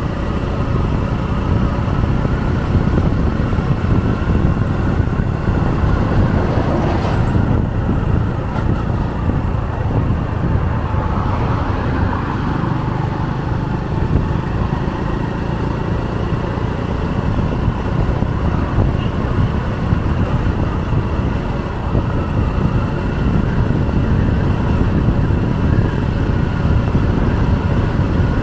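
Steady rumble of wind and road noise from riding along an open highway, with a faint steady hum from the vehicle running underneath.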